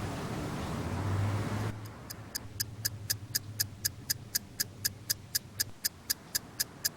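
Alarm clock ticking evenly at about four ticks a second, starting about two seconds in. Before the ticking there is a steady hiss with a low hum, which cuts off suddenly.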